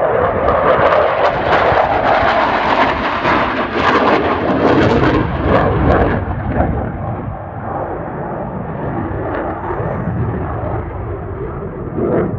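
Eurofighter Typhoon's twin Eurojet EJ200 turbofan jet engines passing overhead: a loud, crackling jet noise for about six seconds that then falls away to a steadier, lower rumble.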